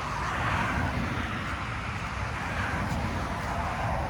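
A car driving past on the road: steady tyre and engine noise.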